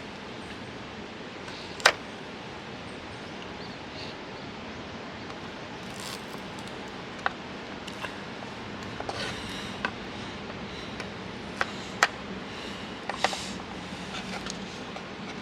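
Cookware and utensils being handled: a few sharp clicks and knocks, spaced irregularly, with short rustles over a steady background hiss.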